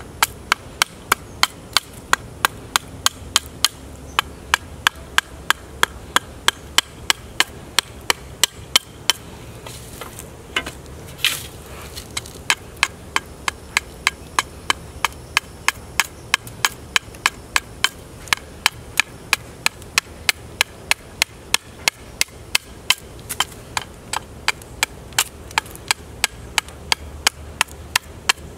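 Chopper knife striking a wooden bow stave in quick, steady chops, about three a second, taking shavings off as the handle is contoured. The chopping breaks off for about three seconds around a third of the way through, then resumes at the same pace.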